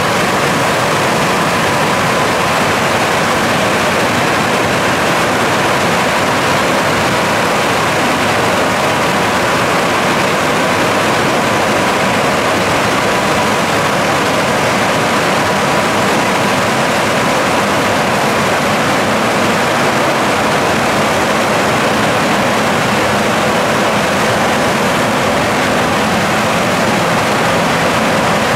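Ceccato Hydrus Tech rollover car wash gantry running a pass along a van: a steady, loud rushing noise with a steady high whine.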